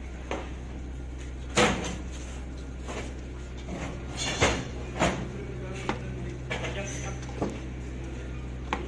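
Scattered sharp knocks and clanks of escalator installation work, about seven in all, the loudest two about a second and a half in and about four and a half seconds in, over a steady low hum.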